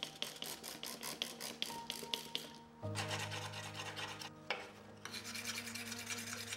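A flat steel paint scraper blade being sharpened with rasping back-and-forth strokes, about four strokes a second at first and quicker, denser strokes from about three seconds in. Background music plays underneath.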